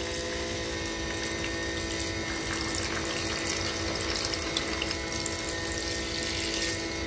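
Tap water running steadily into a sink while dishes are washed, with a faint steady hum beneath it.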